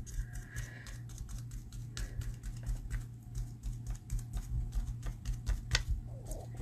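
Sponge dauber pouncing glue through a plastic stencil: quick light taps, several a second, with a faint click each time the stencil meets the card beneath.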